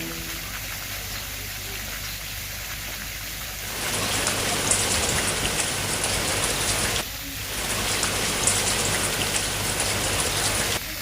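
Steady hiss and patter of falling water, like rain, growing louder about four seconds in, dipping briefly near seven seconds, then cutting off abruptly.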